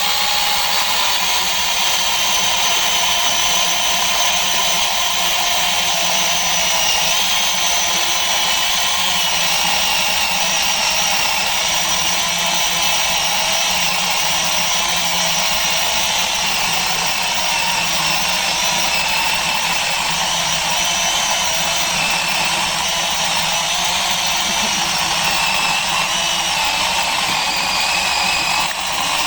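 Electric chainsaw cutting through a thick log: a loud, steady whine that wavers slightly in pitch as the chain bites.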